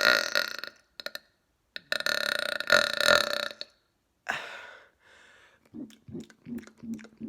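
A man burping loudly on purpose: a big burp trails off at the start, and then a long, drawn-out burp comes about two seconds in and lasts nearly two seconds. Near the end there is a soft pulsing sound, about three pulses a second.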